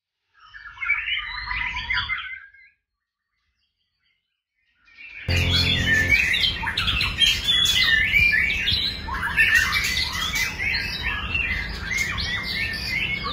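White-rumped shama singing: a short burst of quick, varied notes about half a second in, then after a pause of about two seconds, a long, continuous run of rapid, varied song.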